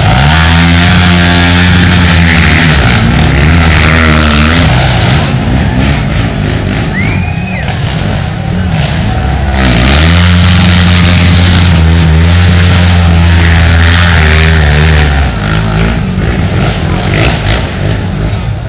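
Race ATV engines running hard at high revs as quads pass close by. There are two long loud passes, one from the start and one about ten seconds in, with rougher engine noise from more distant quads between them.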